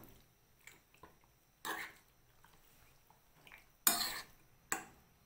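Metal spoon stirring raw chicken pieces in beaten egg in a ceramic bowl, giving a few scrapes and clinks against the bowl, the loudest about four seconds in.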